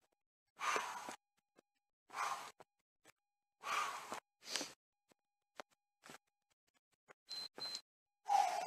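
A man breathing out hard while doing a body-weight HIIT exercise, one breath about every second and a half, with faint taps and scuffs of his feet between.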